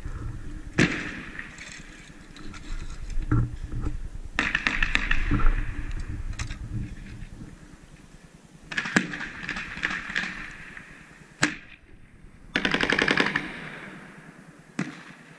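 Airsoft guns firing rapid full-auto bursts: three longer bursts about 4, 9 and 12.5 seconds in, with single shots between them.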